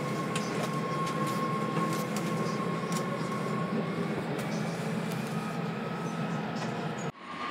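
Steady rumble of a Washington Metro train in a station, with a thin whine that fades about halfway through. The sound drops out abruptly near the end, then comes back louder.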